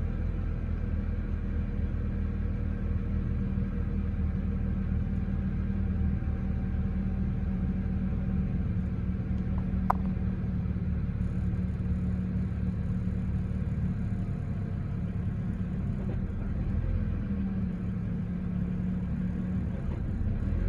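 BMW E90's engine idling steadily while it warms up, an idle the owner calls terrible. A single sharp click about halfway through.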